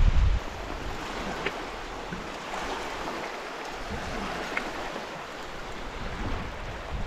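Steady wash of surf and wind on a shell-and-gravel beach, with wind buffeting the microphone right at the start. Two faint, brief high tones sound about a second and a half in and again about four and a half seconds in.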